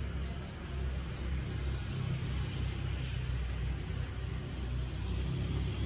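Steady low outdoor rumble, like city traffic or wind on the microphone, with a few faint light ticks.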